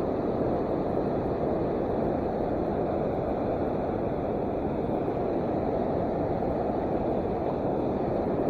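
Steady rushing of river water, an even noise with no breaks or distinct events.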